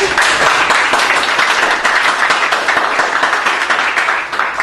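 A small crowd applauding: many hands clapping in a dense, steady patter that dies away near the end.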